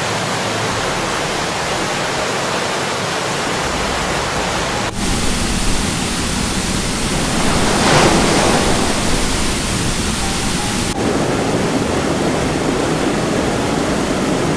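Muddy floodwater rushing in a swollen river, a dense steady noise that changes character abruptly twice and swells loudest about halfway through.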